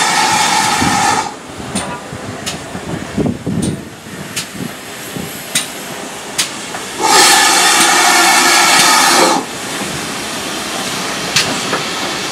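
GWR 5700 Class pannier tank locomotive 7752 pulling away with its coaches: soft exhaust beats and sharp clicks from the wheels, broken twice by a loud hiss of escaping steam, the second about seven seconds in and lasting two seconds or so. After that the coaches keep rolling past.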